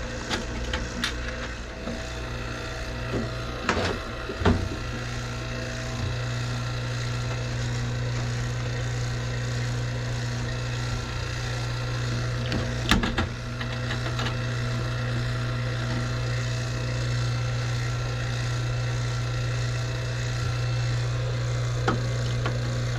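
Vacuum pump running with a steady low hum while it evacuates the refrigerant system of a newly installed condenser. A few sharp clicks and knocks from hand work sound over it, the loudest about thirteen seconds in.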